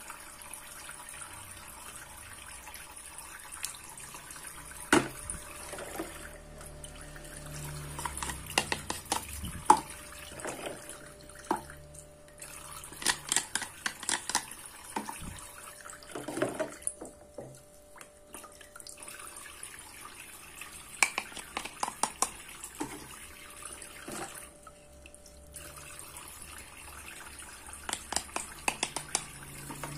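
Toy kitchen sink's faucet running a thin trickle of water into the plastic basin, with clusters of sharp clicks and taps as plastic toy fruit is handled and cut with a wooden toy knife.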